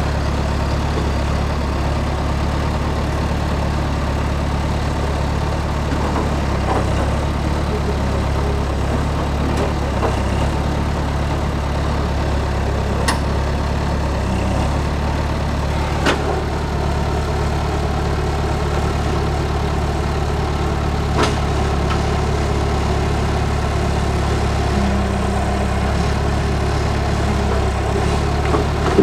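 Bobcat A300 skid-steer loader's diesel engine running steadily while it handles logs on a flatbed trailer, with a few single sharp knocks in the middle of the stretch.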